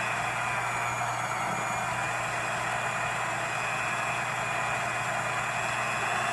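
Electric hand mixer running steadily with a single beater, stirring natural peanut butter inside a glass jar.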